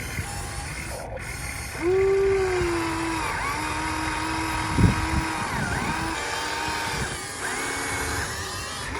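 Radio-controlled model excavator's electric motor whining. It gets louder and higher about two seconds in, then its pitch steps and glides up and down, with a short knock near the middle.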